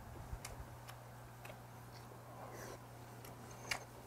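Metal chopsticks clicking sharply against dishes now and then, the loudest click about three and a half seconds in, with soft chewing between, over a steady low hum.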